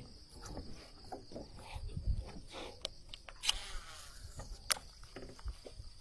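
Steady high-pitched insect chorus, broken by a few sharp clicks, the loudest a little under five seconds in.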